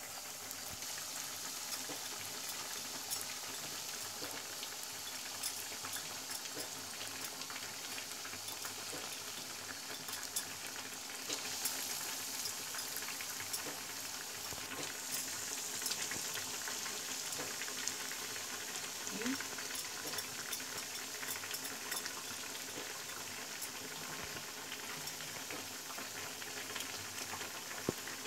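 Breadcrumb-coated potato-and-almond cutlets deep-frying in hot oil in a kadai, just put in: a steady sizzling hiss with frequent small crackles and pops.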